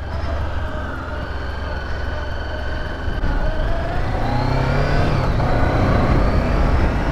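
2015 Honda CB500X's parallel-twin engine running as the motorcycle pulls away, its pitch rising about four seconds in as it picks up speed.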